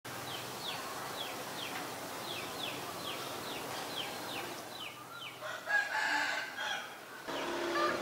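Thin, high, down-slurred chirps repeat about three times a second, then a rooster crows loudly about six seconds in. Near the end other calls start.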